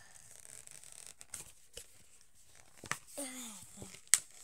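Doll packaging being worked by hand to free a doll's leg: cardboard and plastic rustling and tearing, with a few sharp clicks and snaps, the sharpest near the end.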